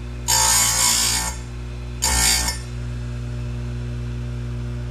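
Tecomec FL-136 electric chain grinder's motor running steadily, with its spinning wheel brought down twice onto a cutter of a badly worn saw chain. It gives two bursts of grinding, the first about a second long and the second about half a second.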